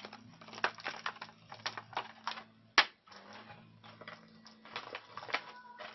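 Irregular light clicks and taps of small objects being handled by hand, with one sharper click about three seconds in, over a faint steady low hum.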